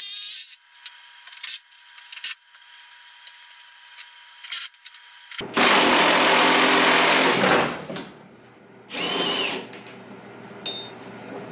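A handheld power tool runs hard for about two seconds and then gives a shorter burst, undoing the engine mount bolts so the engine can be lifted out. Light tool clicks come before it.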